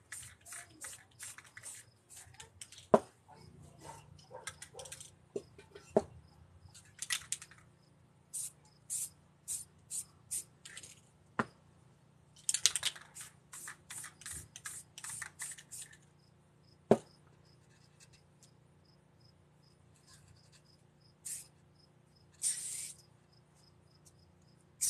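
Aerosol spray paint can hissing in many short bursts, some in quick runs, as paint is sprayed. A few sharp knocks come in between.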